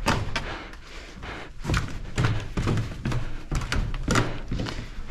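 Footsteps of people running: a quick, uneven run of thuds, about three or four a second, easing briefly about a second in.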